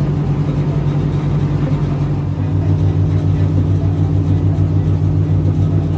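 Boat engine running at a steady pitch, a loud, low drone.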